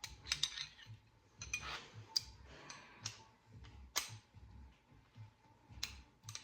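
Metal hand tools clicking and rattling at irregular moments: socket extensions being fitted together on a ratchet.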